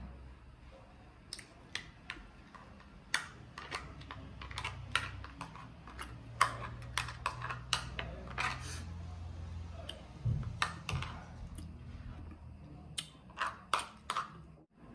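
A metal spoon and fingers tapping, scraping and clicking against a cooked crab's shell while picking out the meat: irregular sharp clicks, with a quick run of them near the end.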